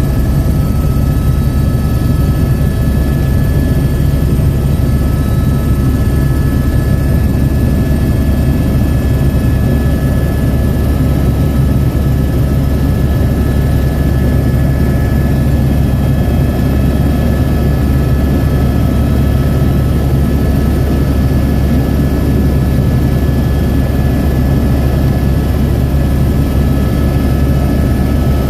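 Helicopter in flight: a loud, steady low drone from the rotor and engine, with a thin steady high whine over it.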